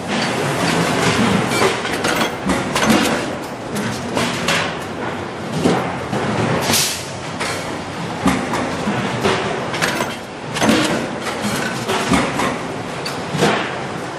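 Stainless-steel sink bowls and press tooling clanking and knocking over a steady din of factory machinery, with irregular sharp metal hits every second or two.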